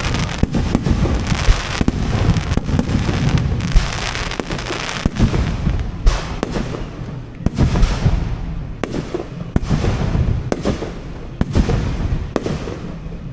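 Aerial firework shells bursting overhead in a display: a run of sharp bangs, roughly one or two a second at irregular spacing, with noise filling the gaps between them.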